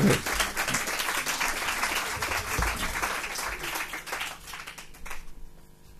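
Audience applauding, the clapping thinning out and stopping about five seconds in.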